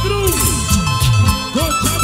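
Live cumbia band playing an instrumental passage with no singing: a steady drum beat and bass under lead lines that bend up and down in pitch.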